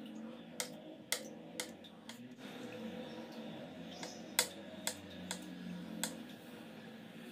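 Kitchen knife slicing soft canned button mushrooms on a wooden cutting board: a series of sharp, irregular taps as the blade hits the board, about seven in all, the loudest about four and a half seconds in.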